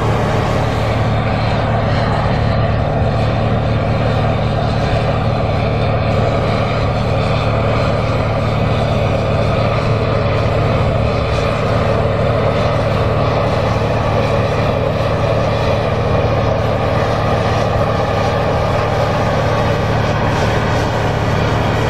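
John Deere 8R tractor's six-cylinder diesel engine running steadily under load while pulling a field cultivator through the ground.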